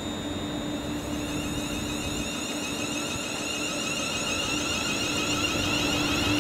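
Train approaching on the line: a steady hum with a high whine, growing slowly louder.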